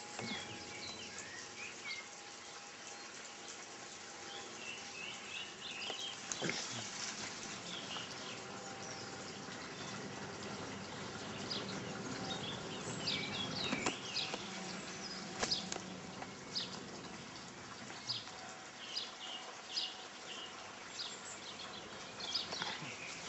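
Small birds chirping and calling again and again, in short high notes, over faint steady background noise.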